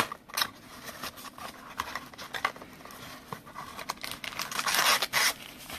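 Trading-card packaging being handled and torn open: crinkling and small clicks and taps throughout, with a longer, louder rustling, tearing stretch about four seconds in.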